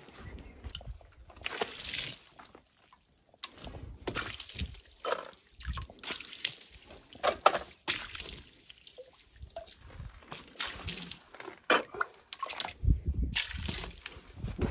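Water scooped from a bucket and thrown against a rough stone wall in repeated, irregular splashes, with sloshing and dripping between them.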